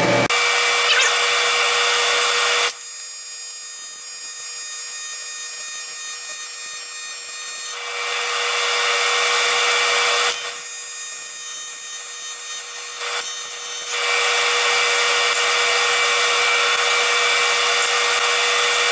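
AC TIG welding arc on aluminium plate, fed by a PrimeWeld TIG 325X, buzzing steadily as a bead is laid. The arc's sound changes abruptly several times between a harsher hiss and a cleaner, higher buzz.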